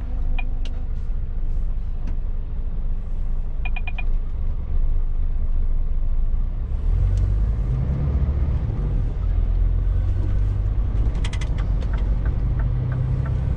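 Scania truck engine heard from inside the cab, running low and steady in slow traffic, then pulling harder and louder about seven seconds in as the truck moves off. A few light clicks early on, and a light regular ticking near the end.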